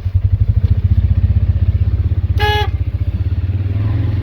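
Side-by-side utility vehicle's engine running with a rapid low putter, which evens out into a smoother, steadier run a little after halfway. A short, high-pitched beep sounds once about halfway through.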